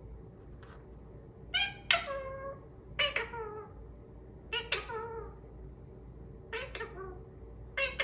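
Blue Indian ringneck parakeet mimicking the word "peekaboo" in a high-pitched voice, about five times, roughly every second and a half.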